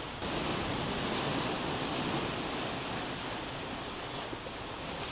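Steady rushing noise of wind and sea water streaming past a cruise ship under way, heard from its open deck.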